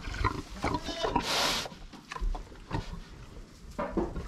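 A Mangalitsa pig rooting in shredded-paper bedding, with short grunts and rustling and one loud breathy burst about a second in.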